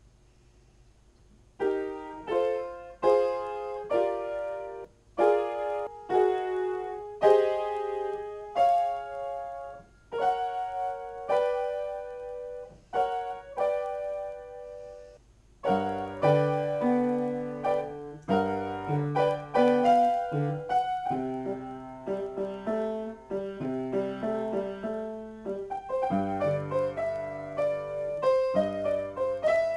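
Upright piano played solo and improvised, starting a couple of seconds in with a run of struck chords in the middle register. About halfway through, bass notes join and the playing grows fuller and busier.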